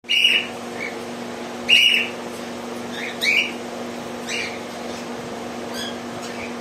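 Caged parrots giving short, shrill calls: four loud ones spaced roughly a second apart, then a few fainter ones, over a steady low hum.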